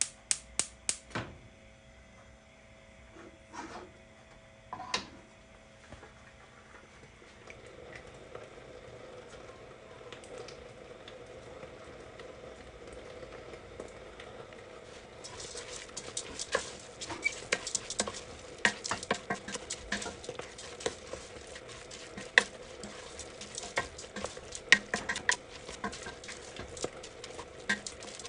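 Wooden spoon stirring lentils, spices and tomato paste in a stainless steel pot: a dense, irregular run of scrapes and knocks that starts about halfway through. Before it there are a few separate clicks and knocks, and a faint steady hum underneath.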